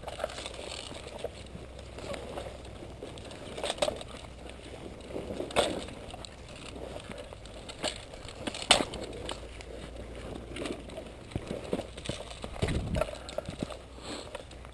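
Footsteps crunching and rustling through dry leaf litter and brush, with scattered sharp snaps and clicks. The loudest come a few seconds apart.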